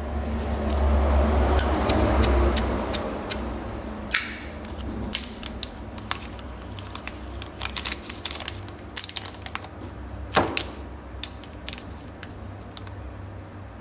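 Zippo lighters being handled: a string of small metal clicks and knocks, one with a brief metallic ring about a second and a half in and a louder knock near the end, over low rubbing noise at the start.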